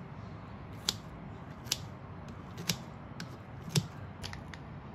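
Kitchen scissors snipping through kimchi in a bowl: a crisp snip about once a second, four main cuts with a few lighter ones near the end.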